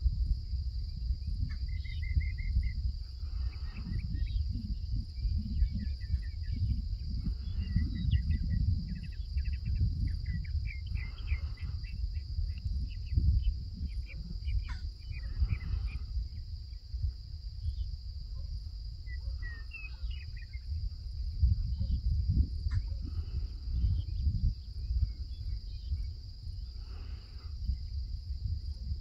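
Steady, high-pitched drone of an evening insect chorus, with a fluctuating low rumble and short chirps scattered throughout.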